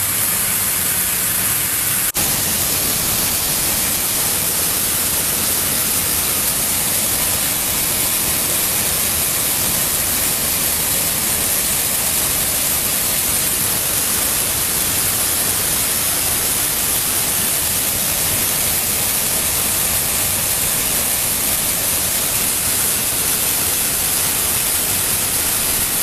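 Steady rushing hiss of a coffee bean colour sorter at work, green beans streaming out of its outlet chute into a woven sack. One sharp click about two seconds in.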